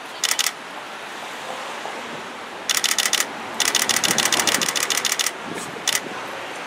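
Camera shutters firing in rapid bursts, about a dozen frames a second: a short burst near the start, a longer run from about three to five seconds in, and a brief one near the end. Steady street noise underneath.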